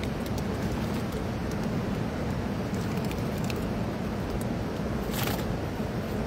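Steady rush of a swollen river flowing, mixed with wind on the microphone, with a few faint clicks and a short hiss about five seconds in.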